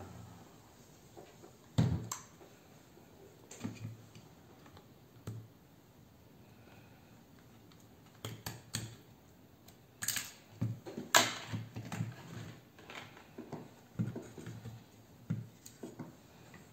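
Irregular clicks and taps of hand tools and a small circuit board being handled on a wooden workbench, with a couple of louder knocks about ten and eleven seconds in.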